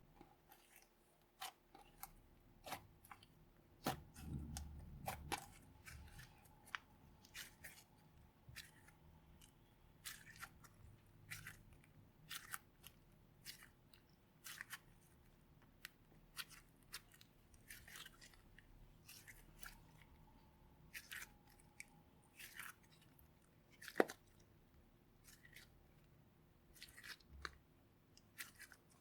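Slime being pressed and kneaded by hand, giving irregular, sharp sticky clicks and pops, one or two a second, with one louder pop late on.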